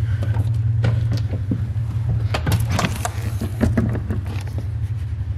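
A boat's transom storage hatch being unlatched and swung open on its gas strut: a run of clicks and knocks between about one and four seconds in, over a steady low hum.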